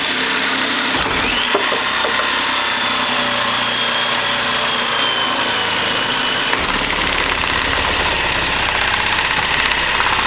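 Gasoline-powered saw engine running steadily and loudly, with a deeper rumble joining about two-thirds of the way through.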